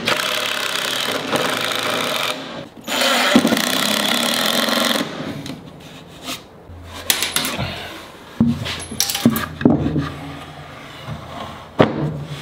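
A cordless drill runs twice, driving wood screws through a plywood sled base into its fence, each run about two seconds long with a short break between them. Scattered knocks follow.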